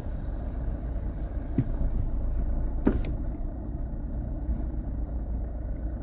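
Motor vehicle running steadily, a low rumble with a few faint knocks.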